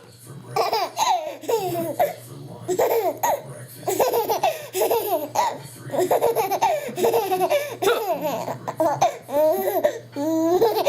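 A young child laughing in repeated high-pitched bursts, the pitch sliding up and down in each burst.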